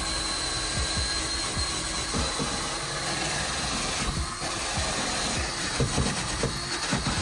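Cordless drill spinning a 3-inch crimped steel wire cup brush against fiberglass, scrubbing away old carpet glue: a steady whirring scrub with many small ticks from the bristles.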